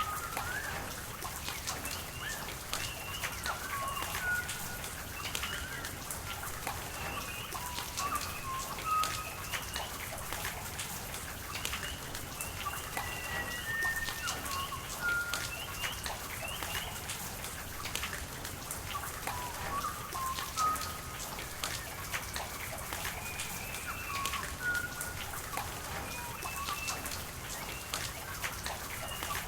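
Rain falling with scattered sharp drop ticks over a steady rush of running water, with many short whistled bird calls throughout.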